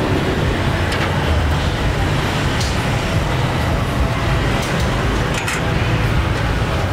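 Steady street noise, mostly a low traffic rumble, with a few short clicks and clatters scattered through it.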